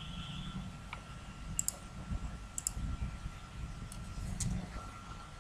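Computer mouse button clicks, a few short paired clicks about a second apart, over a low steady hum of room or microphone noise.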